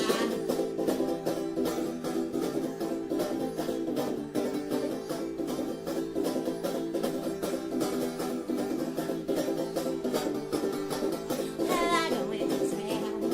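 Background music with quickly plucked strings over a steady accompaniment, and a singing voice coming in near the end.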